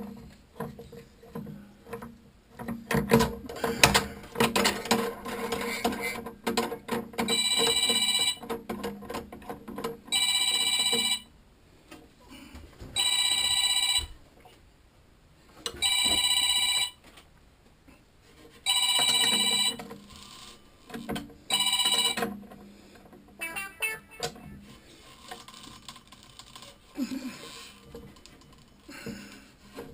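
A telephone ringing six times, each ring about a second long and coming roughly every three seconds. Before the first ring there are several seconds of knocks and clatter.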